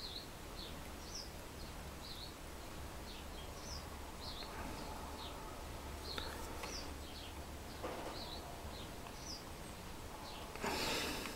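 Faint, short, high chirps of a small bird, irregular at about two a second, over a low steady hum; a brief soft rush of noise near the end.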